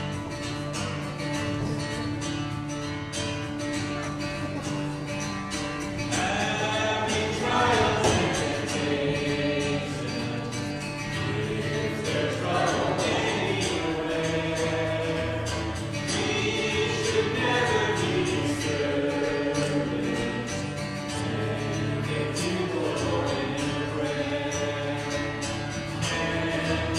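Live church worship band playing a song: acoustic guitar chords with a man and women singing together at microphones. The singing grows louder about six seconds in.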